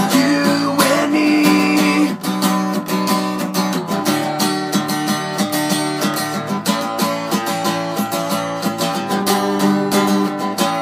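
Steel-string acoustic guitar strummed in a steady rhythm of chords, several strums a second.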